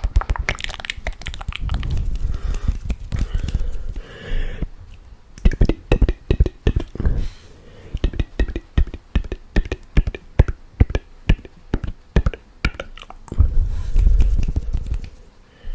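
Close-miked mouth sounds: rapid wet tongue and lip clicks, pops and smacks, with stretches of breathy, hissing mouth noise between the runs of clicks.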